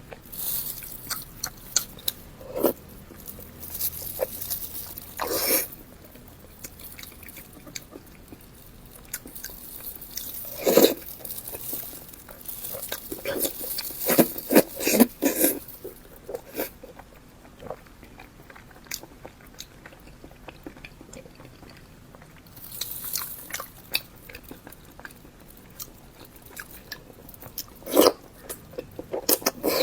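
Close-miked chewing and biting of beef tendon: wet mouth clicks and smacks, with a few louder bites spread through.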